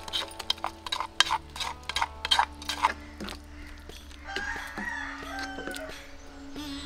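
A spatula knocking and scraping against a clay bowl and a wok in quick, sharp strokes as coconut paste is tipped in and stirred. About four seconds in, a rooster crows once.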